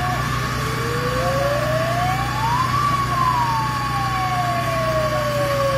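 Fire engine siren wailing: one slow rise in pitch peaking about halfway through, then a long slow fall. Beneath it is a steady low engine drone, and a steady high tone runs alongside it.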